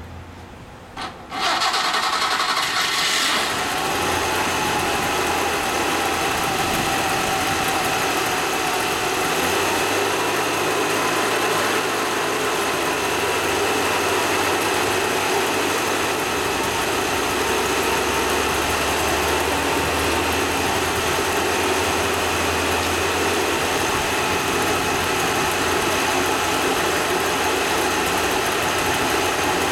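Freshly rebuilt Vespa 400 air-cooled two-stroke twin engine on a test stand, starting about a second in and catching almost at once. It revs briefly, then settles into steady running for its first run-in.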